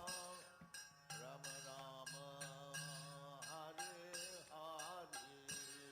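Faint background devotional music: a singing voice over a steady low drone.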